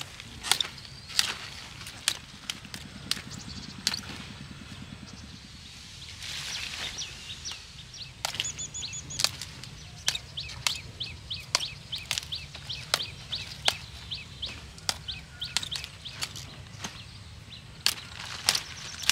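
Crisp snapping and crackling of broccoli leaf stalks being broken and trimmed by hand, in irregular sharp snaps. Birds chirp in the background.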